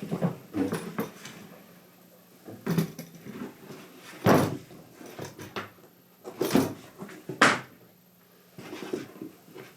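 Mallet striking a hole punch through leather: a series of irregular knocks and thuds, about eight, with pauses between strikes.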